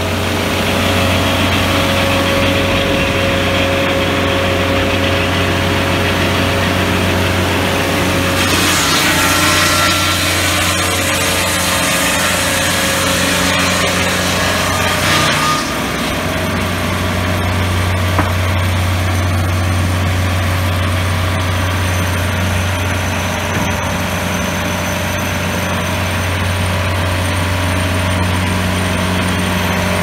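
Mighty Gladiator M12 swingblade circular sawmill sawing a deep 12-inch cut through a log, its engine running steadily under the blade noise. About halfway through, the cutting noise drops off and the engine and spinning blade carry on running without cutting.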